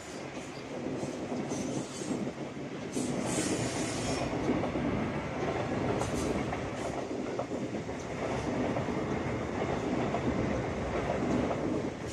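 A train running along the rails, a steady rumble of wheels on track, with a brief high wheel squeal about three seconds in.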